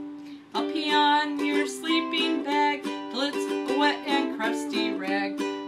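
Ukulele strumming a song accompaniment, with a voice singing over it after a short pause about half a second in.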